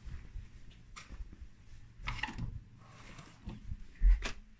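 Footsteps on a wooden parquet floor: irregular soft thumps, with a heavier thump about four seconds in.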